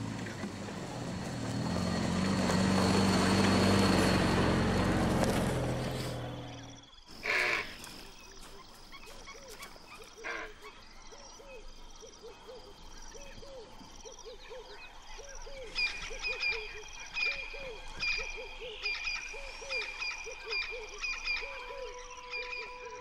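Off-road vehicle engine running as it drives, growing louder and then fading out within the first few seconds. Then night sounds: short calls repeating about twice a second, with higher chirping joining about two-thirds of the way in.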